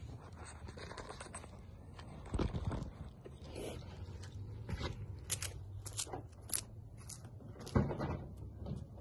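Scattered footsteps and small clicks over a faint steady low hum, with a sharp knock near the end as the car's door is opened.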